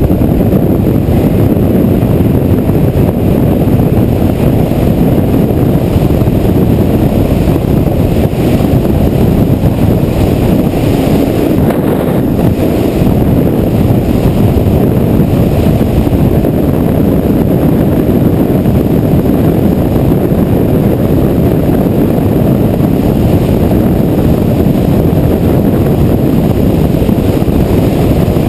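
Kawasaki Ninja 250R motorcycle cruising steadily at highway speed: loud, even wind rush on the microphone with the bike's engine and road noise blended underneath, no gear changes.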